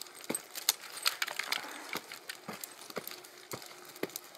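A scattering of sharp, irregular clicks and light knocks, a few each second.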